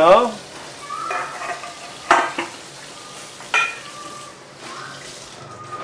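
Cookware being handled at a stainless steel kitchen sink: two sharp metal clinks about a second and a half apart over a steady hiss.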